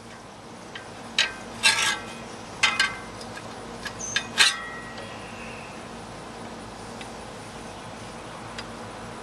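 Several sharp metallic clinks and taps, each with a short ringing tail, bunched between about one and four and a half seconds in, as metal tools and engine parts knock together while a serpentine belt is worked onto the pulleys. After that only a steady low background hum is left.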